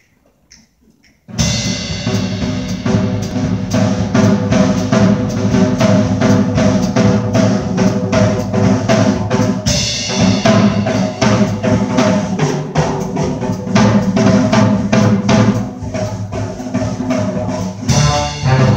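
A big-band jazz ensemble comes in abruptly about a second in, after a moment of faint clicks. A drum kit drives a steady beat under saxophones and a rhythm section of guitar, piano and upright bass.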